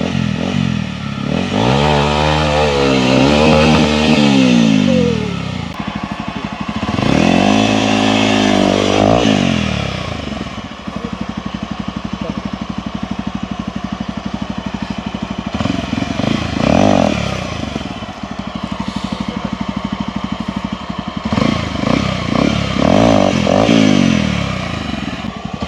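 Hero XPulse 200's single-cylinder four-stroke engine revved hard in repeated bursts, its pitch rising and falling as it is worked through a rough off-road trail section. In a pause around the middle it settles to an even, pulsing idle.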